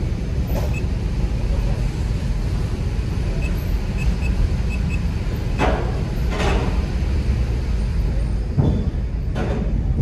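Steady low rumble of engines on a ferry's car deck, heard from inside a car driving slowly toward the ramp. Midway and again near the end come two pairs of clunks, each pair less than a second apart, as the car's front and rear wheels roll over deck plates or joints.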